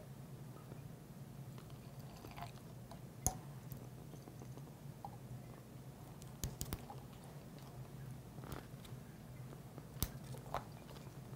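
Faint handling noises as a rubber balloon is stretched and fitted over the mouth of a glass Erlenmeyer flask: a few sharp taps and soft rubbing and crinkling, over a steady low hum.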